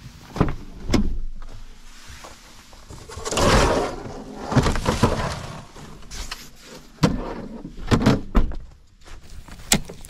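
Pickup truck's rear door latch clicking open, then gear being shifted and a folding table pulled out of the back seat, with rustling, scraping and several sharp knocks.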